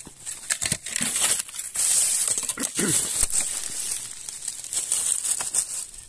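Dry leaf litter and twigs rustling and crackling as a hand pushes into a pile of sticks and dead leaves, with many quick snaps and crinkles.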